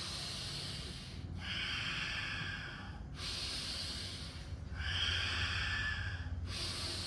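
Bhastrika pranayama breathing: slow, deep breaths drawn in and let out through the nose, each lasting about one and a half to two seconds, with about four in a row.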